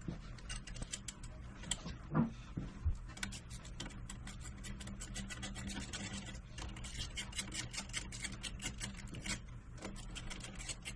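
Hand ratchet clicking in quick runs as the clamp bolts of a highway-peg mount are tightened, after a few knocks of metal parts early on.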